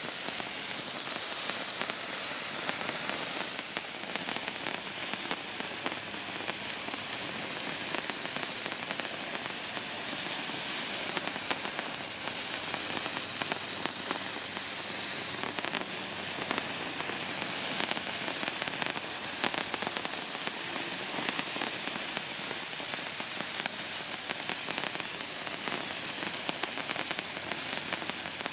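BP30S Glow Party handheld pyrotechnic sparkler stick burning: a steady hiss of spraying sparks laced with dense, fine crackling.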